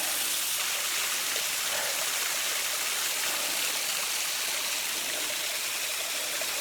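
Waterfall rushing steadily: an even, unbroken hiss of falling and splashing water.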